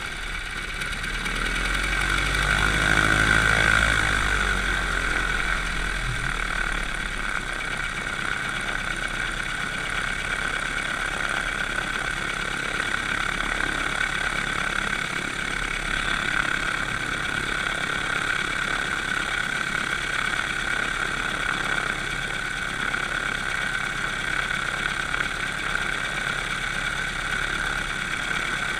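Light aircraft's piston engine running at low, taxiing power with the propeller turning. It swells to its loudest a few seconds in, then holds a steady drone.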